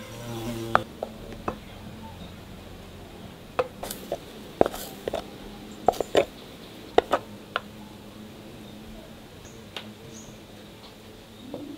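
A utensil knocking and scraping against a mixing bowl as batter is stirred by hand: a scattering of short sharp clicks and taps, most of them between about four and eight seconds in, over a faint low hum.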